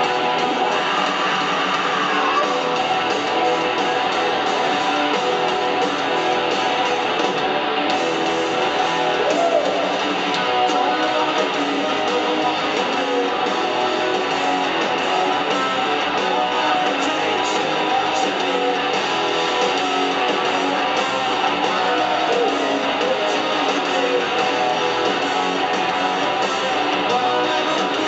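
Live rock band playing loudly and steadily in an arena: strummed electric guitars, bass guitar and drums.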